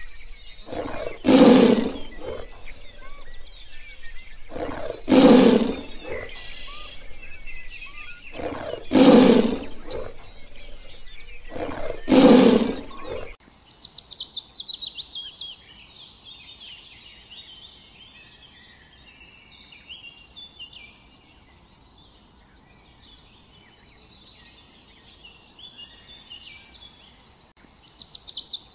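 Tiger roaring four times, about every four seconds, each call lasting about a second. The roars give way suddenly to birdsong: a fast run of high notes, then scattered high chirps and chatter.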